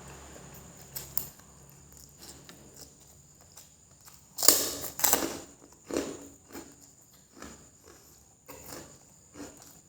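Close-miked eating sounds of a person eating fried noodles: chewing and mouth noises with a few light clicks. There is a loud noisy burst, like a slurp, about four and a half seconds in, and smaller ones after it.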